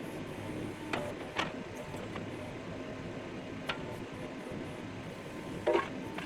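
Kubota KX71-3S mini excavator's diesel engine running steadily, with a few sharp metal knocks about a second in, again shortly after, near the middle and just before the end.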